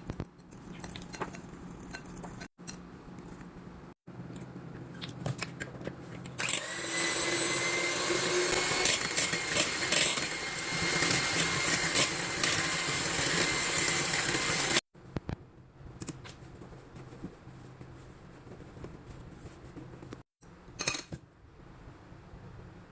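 Electric mixer running steadily for about eight seconds, then cutting off abruptly, with a few light kitchen clicks and knocks around it.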